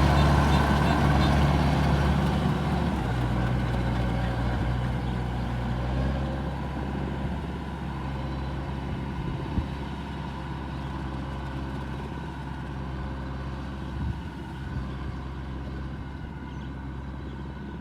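Kubota rice harvester's diesel engine running steadily, growing gradually fainter, with a slight change in its note about three seconds in and a couple of faint knocks later on.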